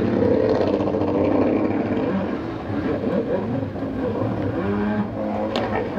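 Several jet ski engines racing together, a layered whine that keeps rising and falling in pitch as the riders throttle.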